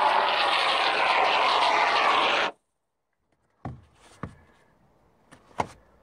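Expanding foam spraying from an aerosol can through its applicator straw: a steady hiss that cuts off suddenly about two and a half seconds in. A few faint knocks follow.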